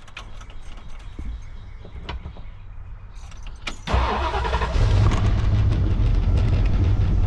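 A 347 stroker small-block Ford V8 in a 1964 Ford Falcon Futura firing up about four seconds in. It flares briefly, then settles into a steady, loud idle.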